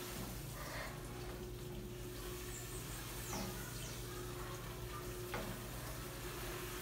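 Crushed malt being poured into mash water and stirred in with a paddle: a faint, soft rustle with a few light knocks, over a steady low hum.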